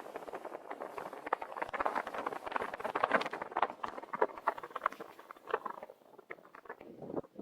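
Car tyres crunching and crackling over snow at low speed. The crackle is densest in the middle and thins out near the end.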